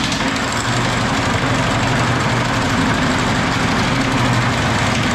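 Homemade Pullmax-style power hammer running and rapidly striking a metal strip fed between its dies. It is driven by an electric motor through a belt pulley and a car rear-end gear.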